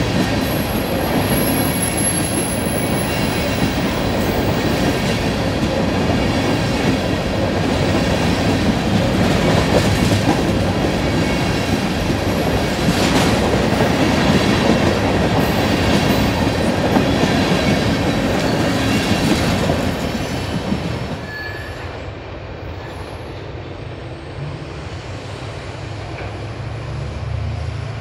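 Freight train rolling past close by, its cars clattering and rumbling over the rails. The noise drops off suddenly about three-quarters of the way through, leaving a quieter low steady rumble.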